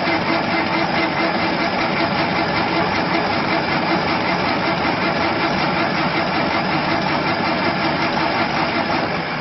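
An engine running steadily at idle, a loud even mechanical drone.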